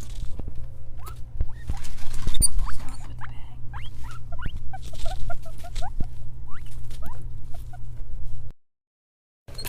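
Guinea pig squeaking in runs of short rising squeaks, with rustling underneath; the sound cuts out for about a second near the end.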